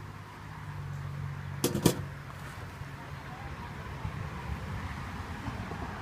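A quick cluster of sharp wooden clicks about two seconds in as a wooden hive frame is worked loose from the hive box, over a steady low hum.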